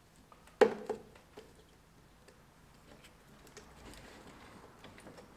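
Hands working a small hose onto its fitting: one sharp knock about half a second in, two lighter knocks just after, then faint scattered clicks and rubbing.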